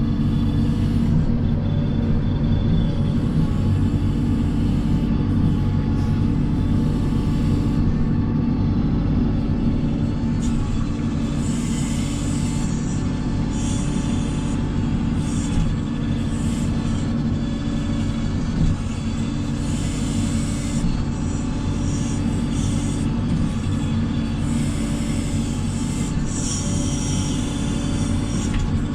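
Backhoe loader's diesel engine running steadily under work, a constant low drone with brief higher rattling flickers in the second half.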